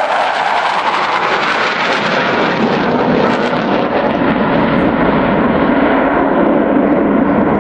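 Panavia Tornado jet's twin RB199 turbofan engines, a loud steady jet roar whose pitch slides slowly down as the aircraft flies past on its turn towards landing.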